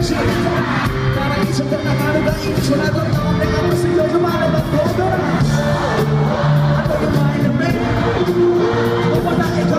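Live pop-rock band playing: electric guitar and drums under a male lead vocal.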